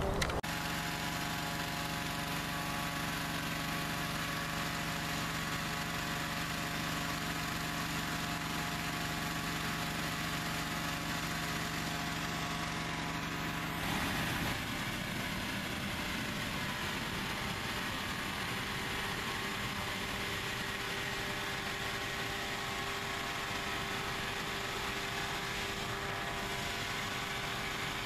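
Small petrol engine of a hot-air balloon inflator fan running steadily. Its tone shifts about halfway through.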